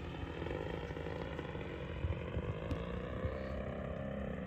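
DLE 61cc two-stroke gas engine and propeller of a large 85-inch Extreme Flight MXS RC plane running at low idle on landing approach, a steady drone heard from the ground. Its pitch rises a little and falls back about halfway through as the plane comes around. Light wind knocks on the microphone.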